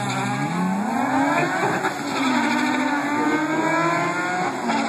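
Two drag cars launching off the line and accelerating hard down the strip, among them a black BMW E21 with a naturally aspirated 2.7-litre M20 stroker straight-six. The engine pitch climbs through each gear, drops at a shift about two seconds in, and drops again near the end.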